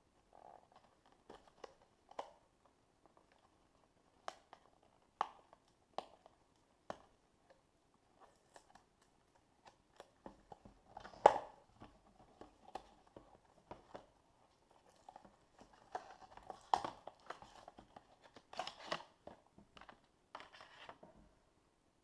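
Cardboard retail box and plastic insert tray of a Lightning cable being opened by hand: scattered clicks, taps and rustles of card and plastic, with one sharp snap about eleven seconds in and bursts of crinkling near the end.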